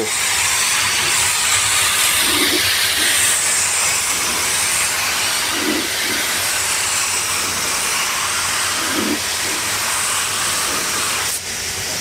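Gravity-feed air spray gun hissing steadily as it sprays clear coat onto a car door. The hiss dips briefly near the end.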